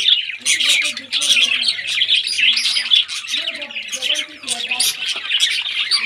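A flock of budgerigars chirping and chattering without a break, many short high calls overlapping one another.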